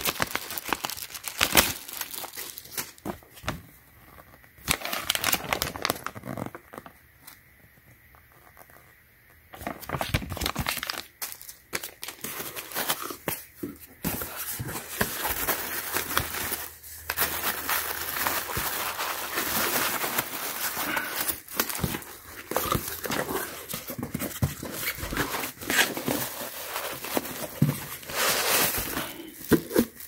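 Plastic packaging crinkling and rustling as it is handled and unwrapped, with cardboard and foam packing shuffled along with it. The rustling drops away for a few seconds about a quarter of the way in, then runs dense again.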